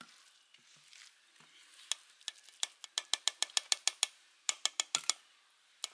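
A metal spoon stirring and scraping cooked rice in a pan: a soft scrape at first, then from about two seconds in a quick run of sharp clicks, about six a second, as the spoon knocks against the pan.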